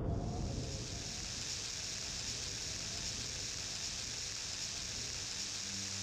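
Steady rain falling, an even hiss with no distinct drops standing out.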